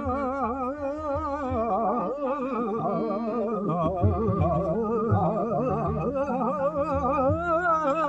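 Devotional song to the goddess Saraswati: a single voice sings long, ornamented notes with wide vibrato over a steady drone, with soft low drum strokes from about halfway through.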